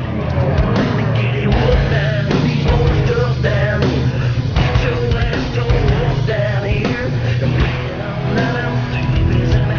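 Rock music with singing and electric guitar over a steady bass.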